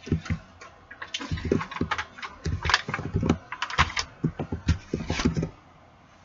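Aluminium foil tray being handled and set down on a tile floor: an irregular run of crinkles, clicks and light knocks that stops about five and a half seconds in.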